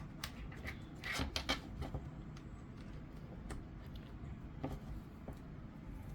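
Handling noise from magnetic charging cables: a scatter of light clicks and brief rustles, most of them in the first two seconds.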